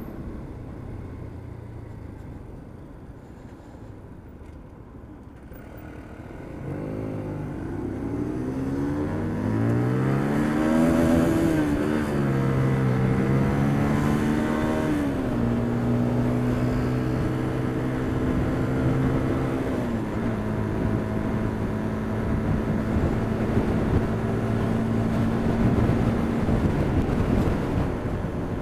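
Motorcycle engine heard from the rider's seat over wind noise: quiet at first, then from about seven seconds in it pulls away with the pitch rising through a few gear changes. It then holds a steady cruising note that drops in steps as the throttle eases.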